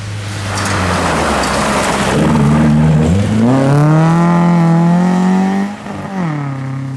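Rally car engine at full throttle, climbing in pitch as the car accelerates. It breaks off briefly about six seconds in, then carries on at a lower pitch.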